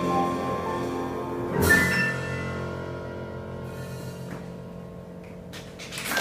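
A jazz band of piano, double bass and drums plays its final chord, accented with a cymbal hit about one and a half seconds in, then left ringing and slowly fading away. Applause starts just at the end.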